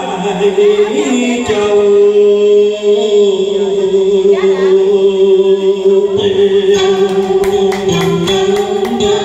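A man singing a long held, slightly wavering note into a microphone over a karaoke backing track. Quick percussion strikes join the accompaniment near the end.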